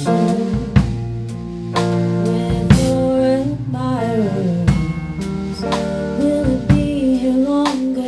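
Live band playing a song: a woman singing over drum kit, guitar and bass guitar, with regular snare and bass drum hits.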